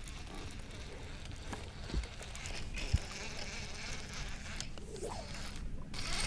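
Baitcasting fishing reel cranked steadily as line is retrieved, a continuous buzzing whir over a low hum, with a couple of faint knocks.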